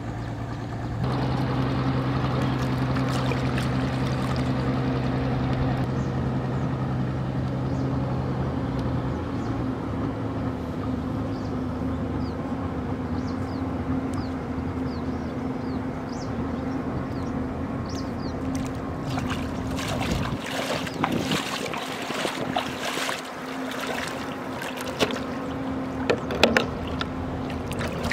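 A motor drones steadily at one pitch in the background. In the last several seconds hands splash in shallow water, with a few sharp knocks.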